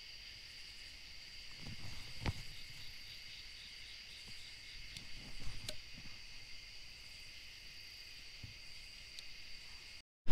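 Night insects, crickets, keeping up a steady high chorus, with a short run of even pulsed chirps about two and a half seconds in. A few soft thumps and sharp clicks about two seconds in and again around five to six seconds in are the loudest sounds.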